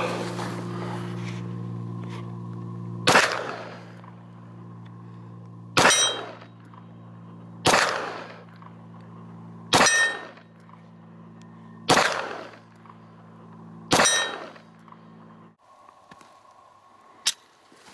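Six pistol shots from a ZEV-modified Glock, fired slowly about two seconds apart, some followed by a brief metallic ring.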